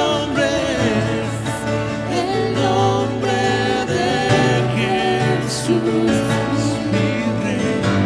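Worship band performing live: several voices singing a slow melody with long held notes over acoustic guitar and a Nord Stage keyboard.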